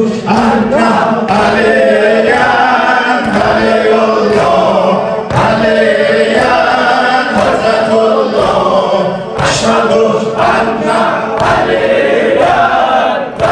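A group of voices chanting together in unison: a Shia mourning chant (latmiya) at a majlis.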